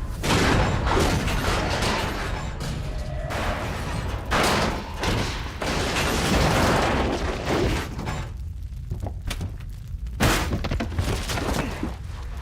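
Film sound effects of a nuclear test blast: a dense rushing rumble of wind and debris with crashes and thuds, easing off for about two seconds before a sharp impact near the end.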